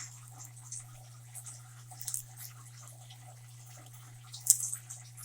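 Pet parrots eating popcorn: scattered small crunches and beak clicks, with a louder cluster about four and a half seconds in, over a steady low hum.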